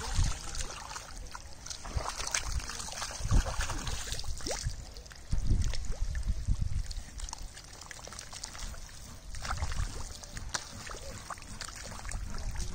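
Muddy shallow water sloshing and splashing in irregular bursts as hands search through it, with a louder splash about five seconds in.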